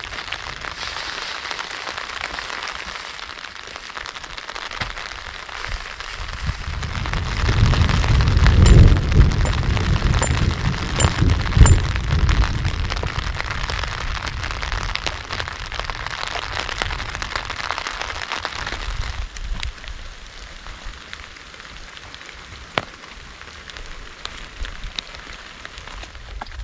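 Steady rain falling on a plastic tarp, with a long, low rumble of thunder rolling for several seconds about a quarter of the way in, loudest in two peaks.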